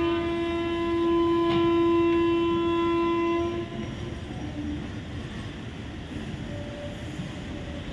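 Locomotive horn sounding one long steady blast that cuts off about three and a half seconds in, followed by a quieter steady rumble.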